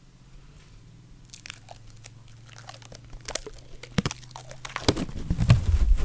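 Close crinkling and crunching against the microphone as it is being covered for protection. The sound starts sparse, about a second and a half in, and grows louder and heavier with handling bumps near the end.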